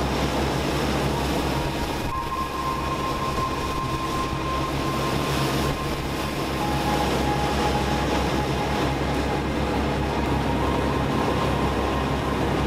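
Boat engines running steadily at cruising speed, a low constant drone, with the rush of the wake water and wind over the hull.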